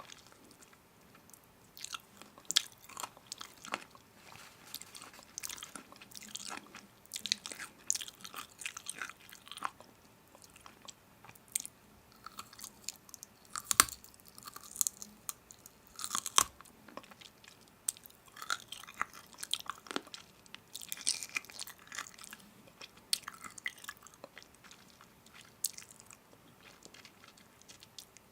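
Someone biting and chewing crunchy food: irregular crisp crunches throughout, with two louder cracks a little past halfway.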